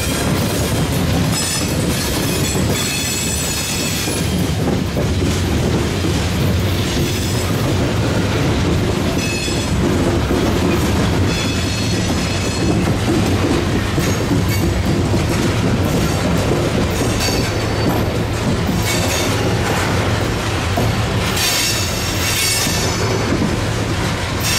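Freight train's open hopper cars rolling past on the rail with a steady rumble and clatter of wheels on track. High wheel squeals come and go several times.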